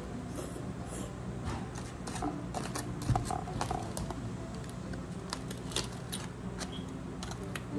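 Close-miked chewing with irregular small wet mouth clicks, mixed with aluminium foil crinkling as a foil-wrapped food parcel is handled and pulled open.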